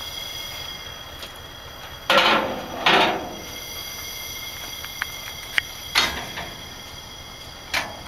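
Rail-yard ambience beside a freight train of loaded open wagons: a steady hiss broken by two loud metallic clanks about two seconds in, another clank around six seconds, one near the end, and a few short sharp clicks in between.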